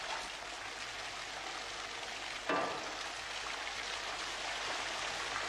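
Steady hiss of steam and bubbling wort in a brewhouse, with one short clunk about two and a half seconds in.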